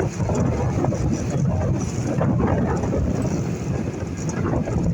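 A tour boat's motor running steadily while under way, with wind buffeting the microphone.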